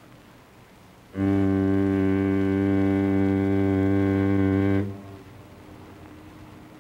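A single low, steady tone held for about three and a half seconds, starting and stopping abruptly.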